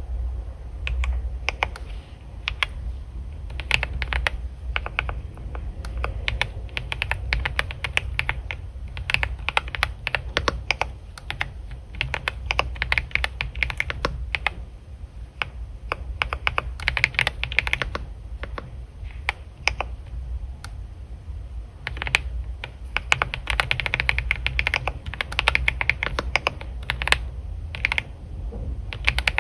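Continuous typing on a computer keyboard: rapid, uneven key clicks with brief pauses between bursts, over a steady low hum.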